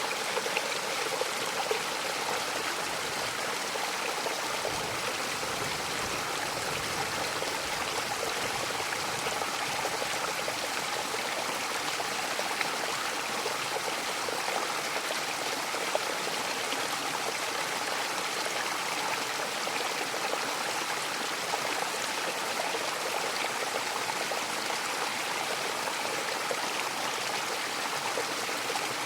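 Mountain waterfall: a steady, even rush of falling water with no breaks.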